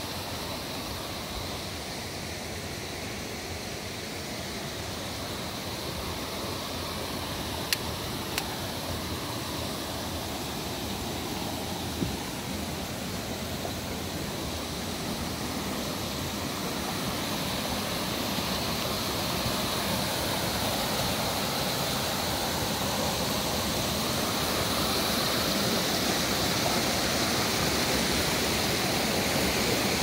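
Rushing river water, a steady wash of noise that grows louder toward the end. A few brief sharp clicks, about eight and twelve seconds in.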